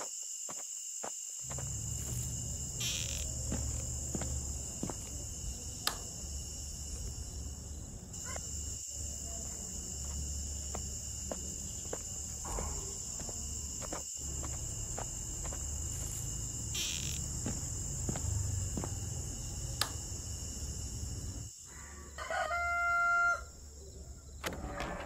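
A rooster crows once near the end, over a steady high-pitched drone, a low rumble and scattered light clicks.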